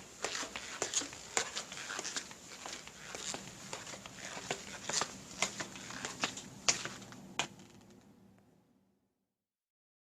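Footsteps at a steady walking pace, about two steps a second, stopping about seven and a half seconds in; the faint background then fades out.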